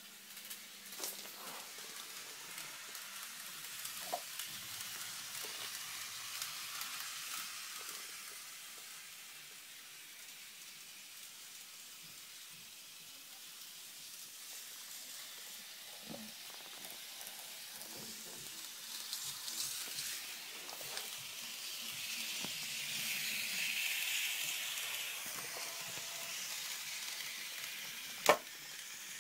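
Kato N gauge model train running on its track: a faint, steady hissing whir from its small motor and wheels that swells and fades as it passes, with scattered light clicks and one sharp knock about a second before the end.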